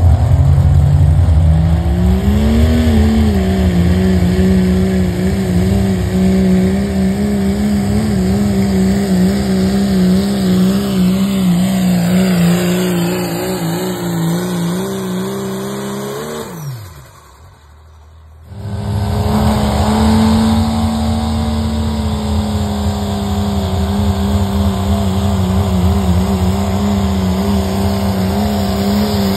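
Turbocharged diesel pickup engines at full throttle pulling a weight-transfer sled, each held at a steady high rev. The first engine revs up in the opening seconds and drops off sharply about two-thirds through; after a short lull a second truck's engine runs flat out.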